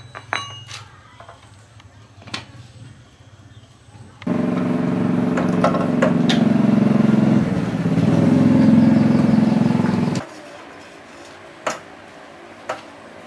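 An engine running steadily for about six seconds, starting and stopping abruptly, with scattered light clinks of metal tools before and after it.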